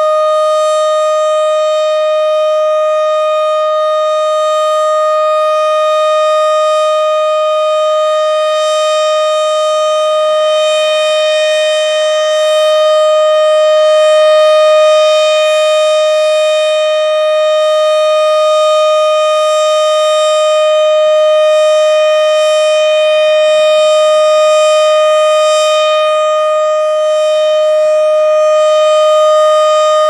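Federal Signal STH-10B omnidirectional tornado siren sounding a steady, unwavering tone during a siren test, loud and close. The pitch holds level throughout, with only slight swells in loudness.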